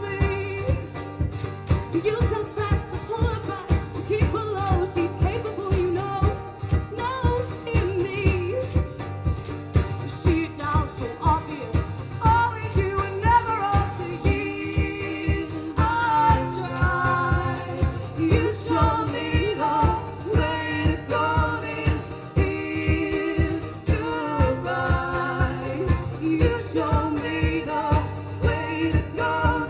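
Live band music: singing over a steady strummed or drummed beat.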